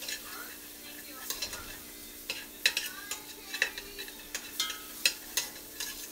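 A metal utensil scraping and clicking irregularly against a stainless steel pot while butter and flour are stirred together into a roux, over a light sizzle.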